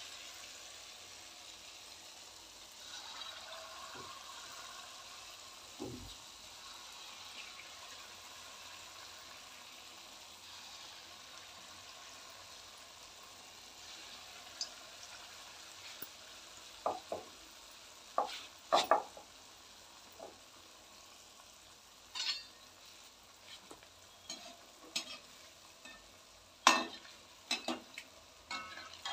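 Gulgule, sweet wheat-flour batter fritters, sizzling steadily as they deep-fry in hot oil in a metal kadai. From about halfway on come a series of sharp metal clinks and scrapes of a perforated slotted spoon against the pan, the loudest sounds here.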